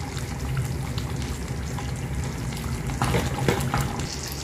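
Finished chicken curry simmering in the pan over the flame, its oil risen to the surface: a steady bubbling hiss with a few small pops a little after three seconds in.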